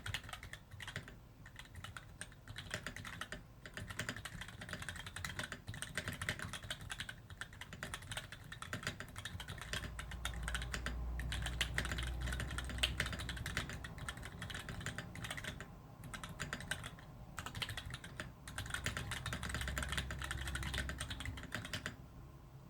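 Typing on a GON NerD TKL mechanical keyboard with 62g Gateron Black linear switches: fast, continuous keystrokes with a few brief pauses, stopping near the end.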